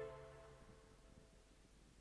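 The last notes of background music die away in the first moment, then near silence.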